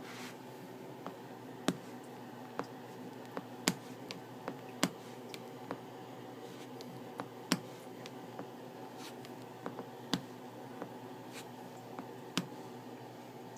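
Joints being cracked: about twenty sharp pops at uneven intervals, some much louder than others, over a steady background hum.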